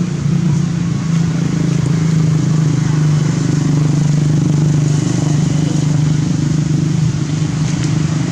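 A steady, low engine drone, as of a motor vehicle running nearby.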